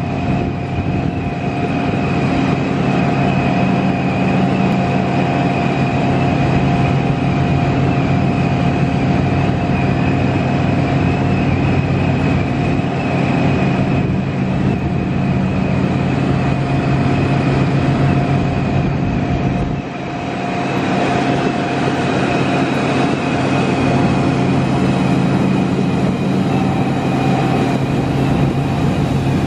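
Shiploader conveyor and cascade loading chute running while bulk Neobor borate is loaded into a ship's hold: a constant industrial rumble with several steady hum tones. The sound dips briefly about two-thirds of the way through, then carries on.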